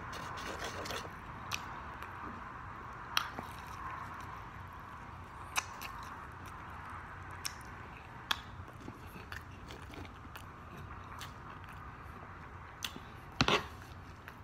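Close-miked eating: chewing and biting into fried chicken and rice, with wet mouth clicks and smacks at irregular intervals over a steady background hiss.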